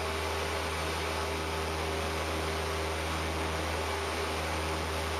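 Cessna 172P's four-cylinder Lycoming engine and propeller running steadily in the climb-out after takeoff: an even drone with a deep hum under a constant rush of air noise.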